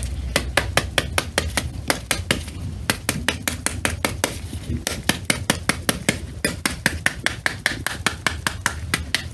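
Back of a metal ladle tapping rapidly on the rind of a halved pomegranate held cut side down, knocking the seeds loose into a bowl: about five or six taps a second, with a couple of short pauses.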